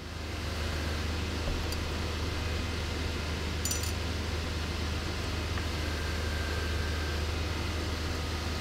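Steady low hum and even hiss of workshop machinery running, with a couple of faint light clicks about two and four seconds in.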